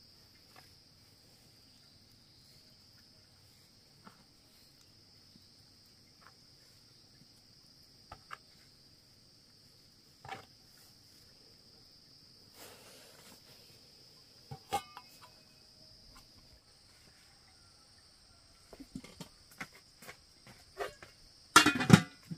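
Insects chirring steadily in a high, even drone, with scattered soft taps as stuffed cabbage rolls are pressed into a metal steamer pot. Near the end comes a loud clatter of a metal cooking pot and lid being handled.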